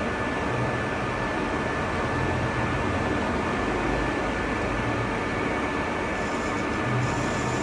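Metal lathe running steadily: a continuous mechanical hum with a constant high-pitched whine.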